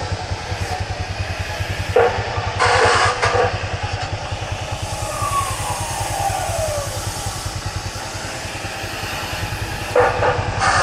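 A small motorbike engine running steadily with a low, even pulse, amid street traffic noise that flares up two to three seconds in. A faint falling tone passes about halfway through.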